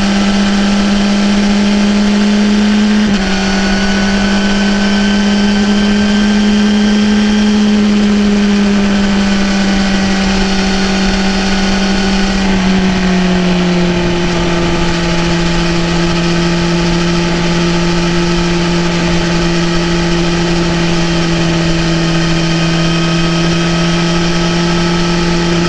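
BMW S1000RR's inline-four engine running under way at a steady note, with a brief dip about three seconds in, then easing to a slightly lower, steady pitch after the middle.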